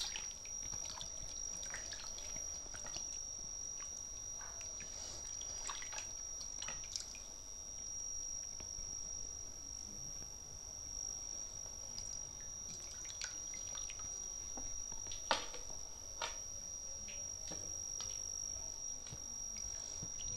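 Papaya slices being rubbed and swished by hand in a steel bowl of water, with small splashes and drips at irregular moments. A steady high-pitched tone runs under it.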